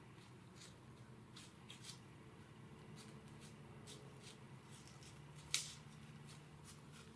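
Faint, irregular crunching in dry fallen leaves: a whitetail deer's hooves walking through the leaf litter. One sharp click stands out about five and a half seconds in.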